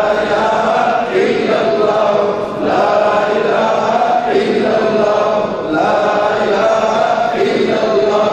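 A man chanting an Islamic supplication (dua) into a microphone, in long melodic phrases with short breaks between them.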